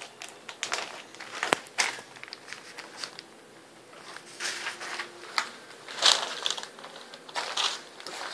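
Irregular rustling and crackling with a few sharp clicks, in uneven bursts.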